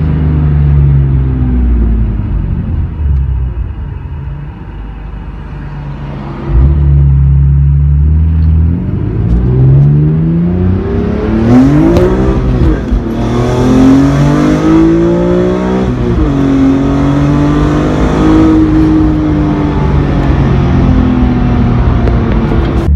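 BMW E46 M3's straight-six running through a Supersprint full header-to-muffler exhaust with a CSL airbox. It holds steady at first and eases off a little, comes back in loudly about six and a half seconds in, then revs climb and fall back several times as it accelerates through the gears.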